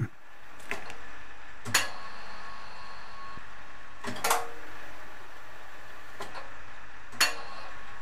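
Power-feed control joystick of a Schaublin 22 milling machine being thrown by hand, giving about four sharp metallic clunks a few seconds apart, each with a short ring, over the steady hum of the machine's drive motor running.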